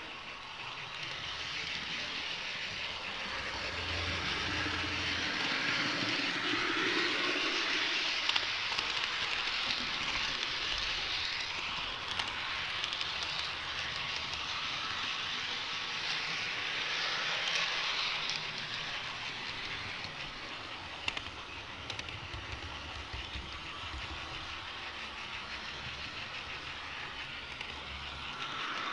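HO-scale model train running along its track with a camera riding on it: a steady rushing noise of small wheels on rail, swelling and easing, with a few sharp clicks.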